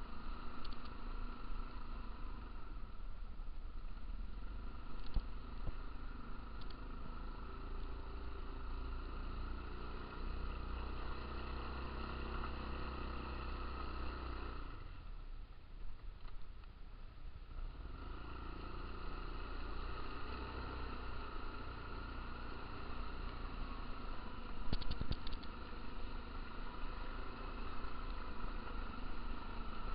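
Stels ATV 300 quad bike engine running steadily while riding over a muddy, rutted track. The engine note drops away for a few seconds about halfway through. A few sharp knocks come a little past two-thirds of the way through.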